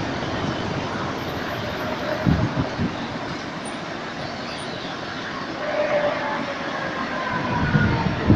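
Cars driving past on cobblestones, a few low thumps among them, and an approaching electric tram that grows louder over the last few seconds with a faint whine, gliding slightly in pitch, from its motors and wheels.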